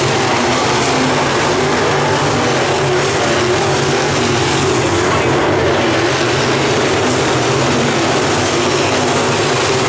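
Several dirt-track modified race cars' V8 engines running at speed around the oval, a loud, steady wall of engine noise from the pack.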